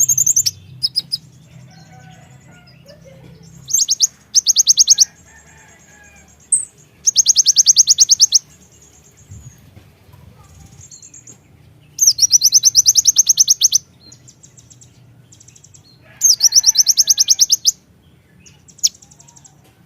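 Kolibri ninja sunbird singing: four bursts of very fast, high, rattling repeated notes, each lasting a second or two, with short single chirps in between. These rapid runs are the 'tembakan' ('shooting') song that keepers play to stir up their own birds.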